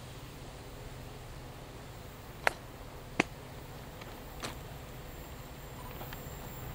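Faint, steady low rumble of a distant class 335 diesel locomotive approaching with a container train, growing slightly near the end. A few sharp, brief clicks sound over it in the middle.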